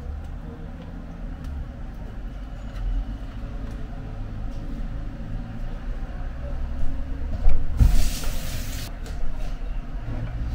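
Quiet handling sounds of a tortilla being rolled into a burrito and set on a plate, over a steady low hum, with a brief rustling scrape about eight seconds in.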